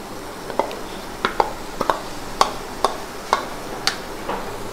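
Chopped bitter gourd pieces tipped from a bowl into a kadai of masala, making a string of light, irregular taps and clicks as they drop into the pan.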